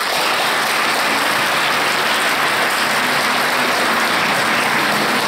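Audience applauding, a steady, loud sound of many hands clapping.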